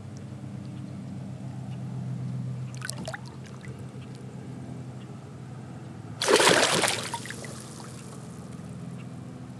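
Water splashing as a smallmouth bass is released by hand into the river: a small splash about three seconds in, then a much louder splash about six seconds in as the fish breaks away. A low steady hum runs underneath.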